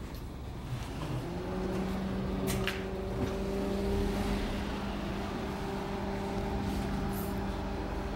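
A steady low mechanical hum that comes in about a second in and holds at one pitch, over low street background noise, with a couple of faint clicks.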